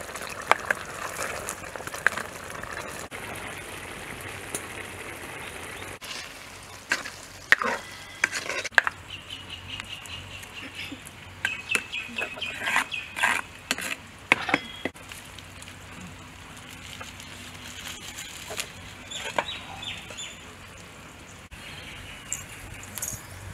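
Thick prawn curry sizzling and simmering in a clay pot while a ladle stirs it, scraping and knocking against the pot's sides. A bird calls in the middle.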